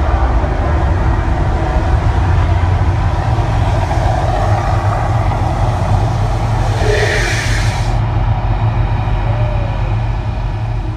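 Mirage volcano show's eruption effects: a loud, steady low rumble under a broad hiss, and the hiss cuts off sharply about eight seconds in.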